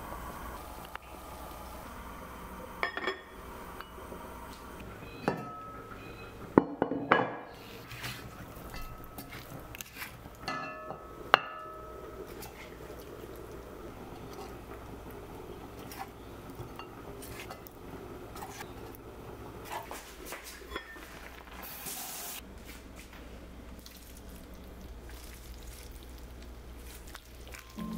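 A spoon clinking against glass and ceramic cookware. There are a handful of sharp clinks with brief ringing, most of them between about three and twelve seconds in, over a faint steady background.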